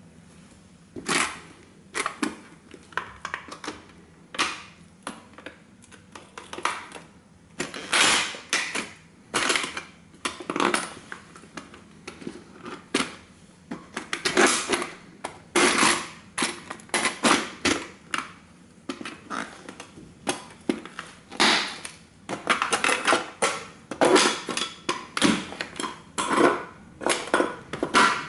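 Vintage tin toy car slowly crushed under the weight of heavy combat boots: irregular crackles, creaks and sharp pops of buckling sheet tin. It starts about a second in, then comes in clusters of cracks every second or so, thickest near the middle and toward the end.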